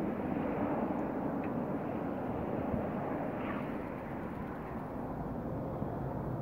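Distant air tanker's engines droning steadily as it makes a low pass to drop fire retardant, easing off slightly partway through.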